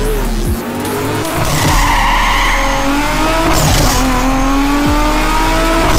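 Produced intro sound effects: a car engine revving with its pitch slowly rising and tyres squealing about two seconds in, with whooshes and deep electronic bass drops.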